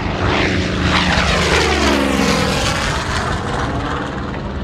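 A WW2 piston-engined fighter making a low pass overhead. The engine and propeller sound swells as it approaches, then drops in pitch as it goes by, about two seconds in.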